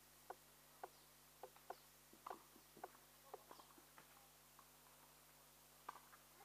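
Faint footsteps on a hard tennis court, about two a second, over near silence. They stop about four seconds in, with one or two more clicks near the end.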